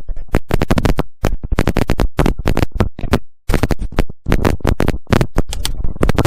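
Background music with a fast, choppy beat: short sharp hits separated by brief dead silences.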